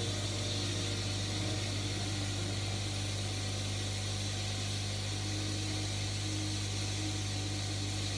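Steady low electrical hum with a constant hiss and no distinct events.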